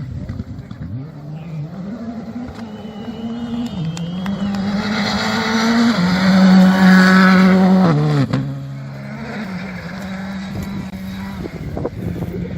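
Rally car engine running hard on a special stage, its revs stepping up and down through gear changes and growing louder to a peak about six to eight seconds in. The note then drops sharply and carries on quieter and steady.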